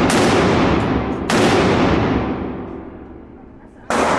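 Three loud gunshots at a shooting range, about one, then two and a half seconds apart, each with a long echoing tail.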